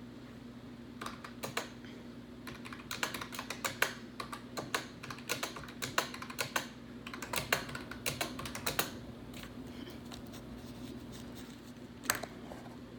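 Keys being tapped in quick, irregular runs of sharp clicks, thinning to a pause of a couple of seconds near the end, over a steady low electrical hum.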